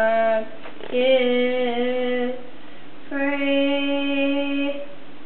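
A voice singing three long held notes, each a little higher than the last, with short gaps between them.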